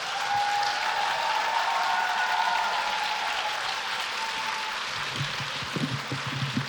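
Audience applauding, with a few long held voice-like cries over the first few seconds.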